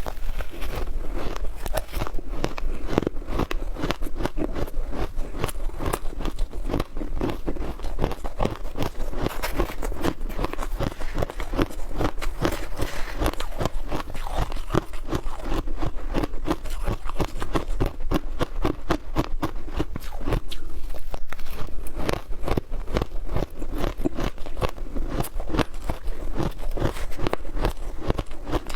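Frozen matcha shaved ice being bitten and chewed close to the microphone: a steady run of rapid, sharp crunches.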